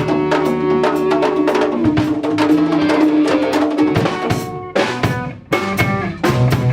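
Live band playing loud, with a drum kit's rapid bass drum and snare hits over held pitched tones. The sound thins and dips briefly around five seconds in, then comes back with separate drum strokes.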